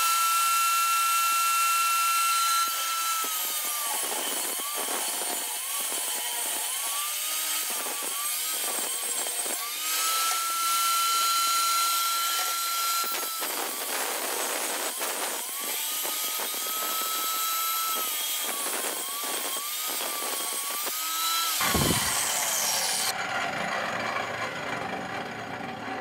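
Table saw ripping the groove edge off a red oak flooring board. The blade's steady whine sags in pitch each time it bites into the wood and recovers between feeds. Near the end the saw is switched off and its whine falls away as the blade spins down.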